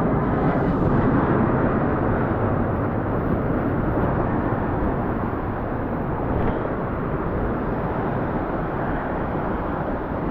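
Steady rushing noise of big waves surging among the rocks of a jetty.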